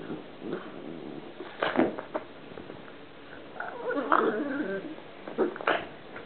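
Pug making its strange noises while playing, in short bursts: a few about a second and a half in, a longer run around four seconds, and two more near the end.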